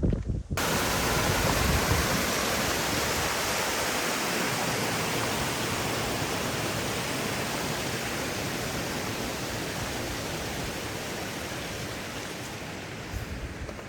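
Steady rush of mountain water, an even hiss that starts abruptly about half a second in and slowly fades.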